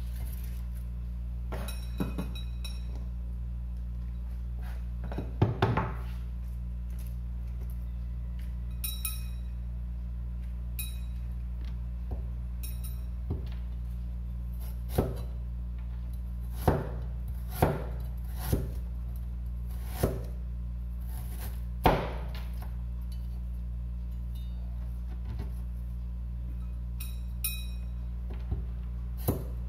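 Chinese cleaver knocking on a plastic cutting board in irregular single chops and thuds as ginger and garlic are cut and pressed flat, most of them in the second half, over a steady low hum.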